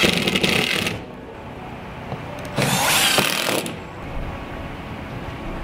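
Cordless drill driving screws through cement board into the wall studs, in two runs of about a second each with a pause between.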